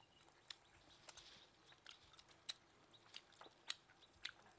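Close-miked chewing of grilled frog meat: faint, irregular wet mouth clicks and smacks, roughly two a second.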